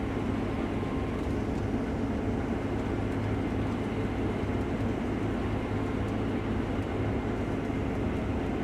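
Case IH Axial-Flow combine running steadily while harvesting wheat, an even engine and machinery drone with a constant low hum.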